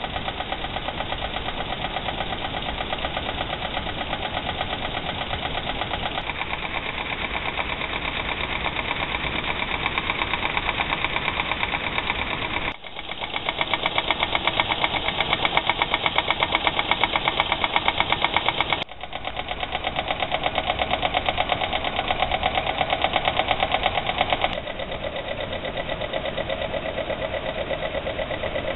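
Vintage Weeden 420 toy live steam engine running under steam, its single cylinder puffing in a rapid, even beat. The sound breaks off abruptly and picks up again twice.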